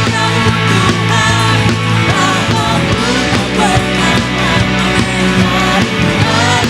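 Live worship band playing a song, with voices singing over drums and bass.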